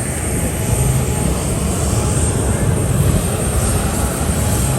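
Steady, loud aircraft engine noise, likely a fixed-wing plane running or passing, with the low rumble fluctuating throughout.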